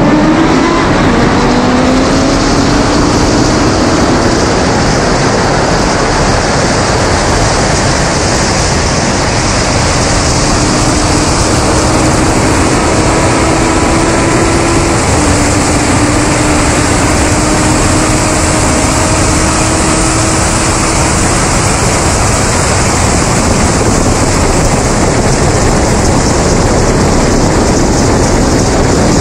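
Loud wind rush over a car-mounted camera at high speed during a full-throttle highway race, with a car engine pulling hard underneath, its note rising and stepping down once at a gear change about halfway through.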